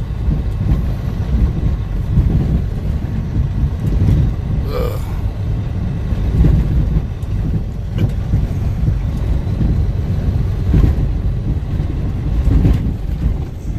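Steady low rumble of a truck driving on snow-covered roads, heard from inside the cab. There is a brief short sound about five seconds in and a click about eight seconds in.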